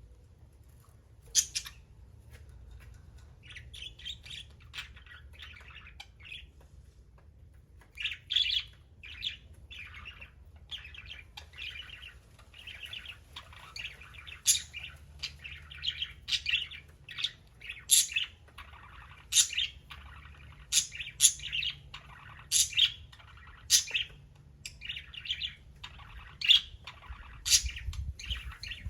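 Budgerigars chirping and chattering in short, quick calls, sparse at first and almost continuous from about eight seconds in.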